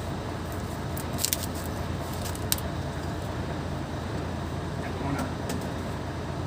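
Steady low background rumble with a few sharp metallic clicks of hand tools on clutch parts, about a second in, two and a half seconds in, and again near the end.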